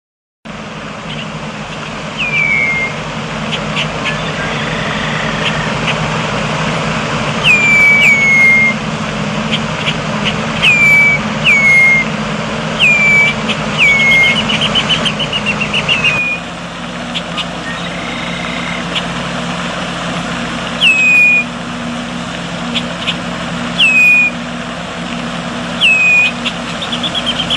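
A bird chirping: sharp chirps that slide down in pitch, singly or in quick pairs, every one to two seconds, with a brief fast trill about halfway through. Under them runs a steady low hum and hiss that drops a little about halfway through.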